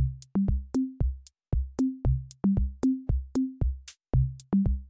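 Background electronic music with a steady drum-machine beat and short, bouncing bass notes.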